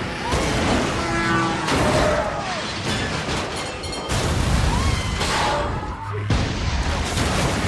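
Disaster-film soundtrack: dramatic music score mixed with crashing, booming destruction sound effects.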